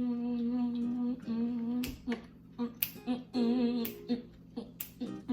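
A woman humming a slow tune in long held notes, some with a wavering pitch. Several sharp clicks or snaps fall between the notes, starting about two seconds in.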